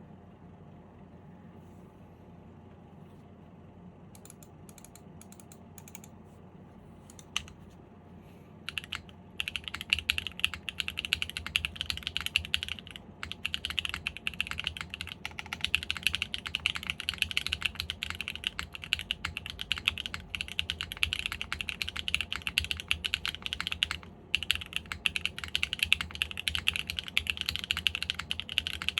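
Custom KBD8X MKIII mechanical keyboard with Sarokeys Strawberry Wine switches in an aluminium plate, no foam dampening and GMK keycaps, being typed on. It starts quiet with a few scattered key clicks, then fast continuous typing begins about nine seconds in, broken by two brief pauses.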